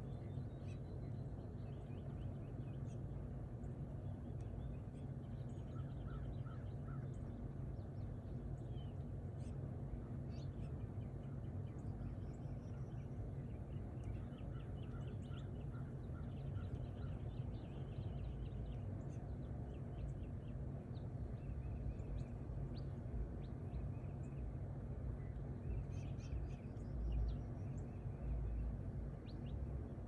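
Faint, scattered chirps and short trills of small songbirds over a steady low hum, with a brief low bump near the end.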